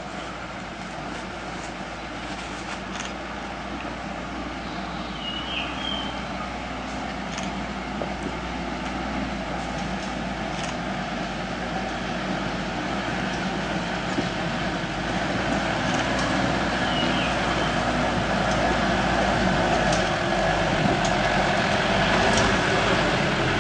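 Mitsubishi Pajero 4x4's engine running steadily as the vehicle crawls over a rocky trail, growing gradually louder as it comes closer. Occasional short clicks sound over it, and two brief high chirps come through, about five seconds in and again past the middle.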